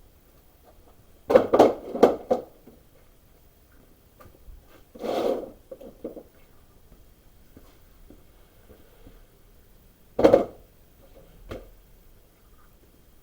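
Scattered knocks and clunks of objects being handled, with a short rubbing scrape about five seconds in.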